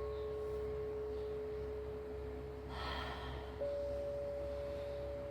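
Singing bowls ringing with long, steady, pure tones: one struck right at the start sustains throughout, and a second, higher bowl is struck about three and a half seconds in and rings on over it. A brief soft rustle comes just before the second strike.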